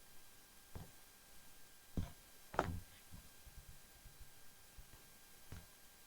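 A few soft, uneven footsteps on a woodland trail: four short steps, the loudest about two and a half seconds in, over a quiet background.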